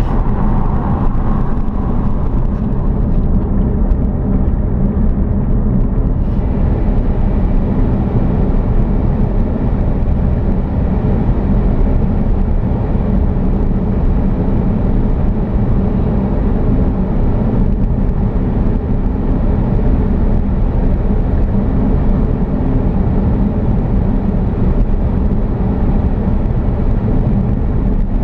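Vehicle driving, heard as a steady, even low rumble of running and road noise with no breaks.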